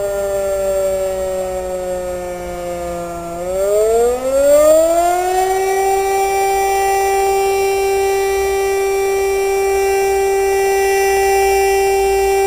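DS977 electromechanical siren sounding the fire-alarm signal. Its two-note wail sags in pitch for the first three seconds or so, winds back up about four seconds in, and then holds a steady tone.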